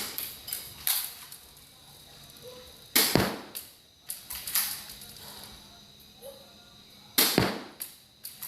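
Spring-action airsoft pistol firing, with sharp snaps at the start, about three seconds in and about seven seconds in, each followed by a few smaller clicks.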